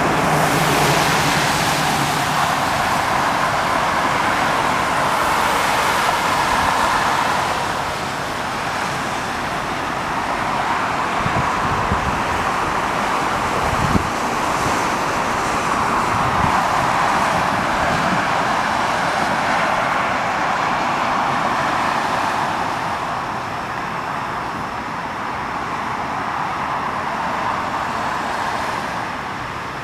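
Steady rushing road noise of a car driving or of traffic passing, swelling and easing slowly, with a few faint low knocks about halfway through.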